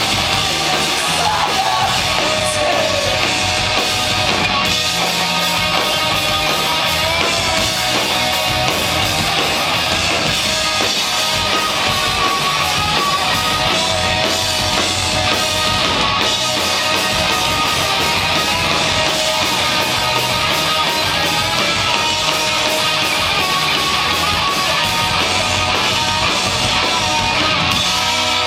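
Rock band playing live, loud and steady: distorted electric guitars, bass and drums.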